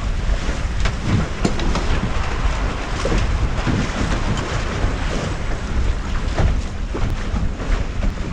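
Wind buffeting the microphone and water rushing along the hull of a 19-foot Flying Scot sailboat sailing fast through a light chop, with a short slap of water against the hull now and then.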